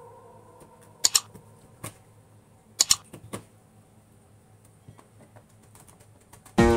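Kitchen knife chopping through fish steaks onto a plastic cutting board: a few sharp knocks, in small clusters about a second apart. Plucked-string music comes in near the end.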